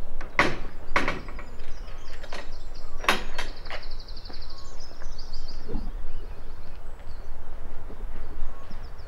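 Birds chirping and singing, with a fast trill about three seconds in, over a steady low rumble. A few short, sharp knocks come in the first three seconds.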